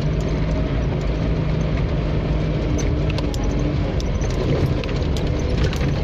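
Off-road 4x4's engine running at low, steady revs while the vehicle drives slowly along a trail, with light clicks and rattles over the hum.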